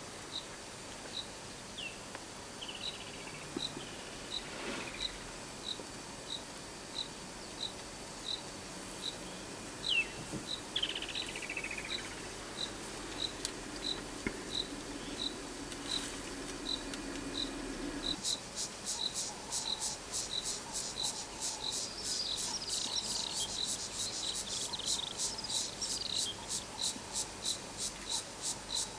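Insects chirping in a steady, even rhythm of short high chirps, about one and a half a second, joined about two-thirds in by a second insect with a faster, buzzier pulsing. A couple of short descending bird calls sound in the first half.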